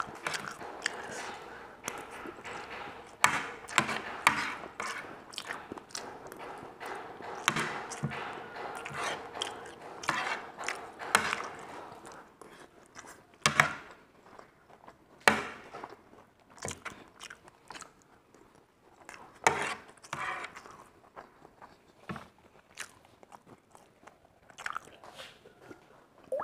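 Close-up eating sounds: a fork and knife clinking and scraping on a ceramic plate, with chewing. The clinks come often in the first half and more sparsely later.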